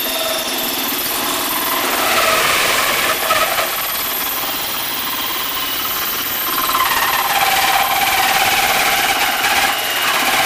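Cordless drill running under load with a 1¼-inch hole saw cutting into a two-layer sheet-metal ammo box lid, with a steady grinding of the saw teeth and a wavering high squeal from the metal.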